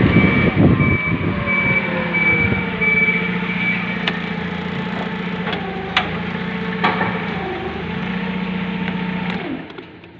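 Truck diesel engine running steadily, with a reversing alarm beeping at a regular pace for the first few seconds and a few sharp clicks. The engine cuts off about a second before the end.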